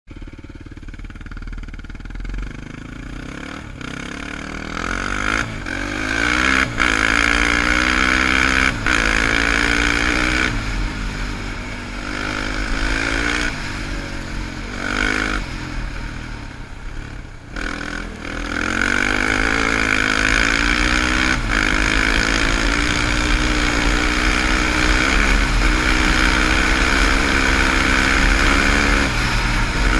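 Sport quad (ATV) engine pulling away and accelerating. Its pitch climbs in repeated rises, with short drops as the throttle is rolled off and on. In the last third it runs steady and loud at speed.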